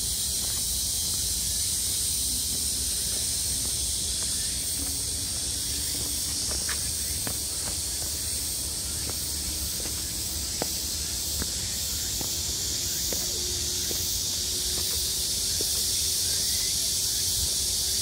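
A steady, high-pitched chorus of insects in the woods, with a low rumble beneath it and a few faint ticks of footsteps on the path.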